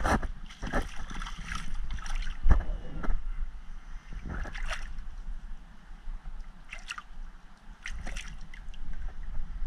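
Hands sloshing and splashing in shallow seawater in irregular bursts while scooping a small crab off the bottom, over a steady low rumble.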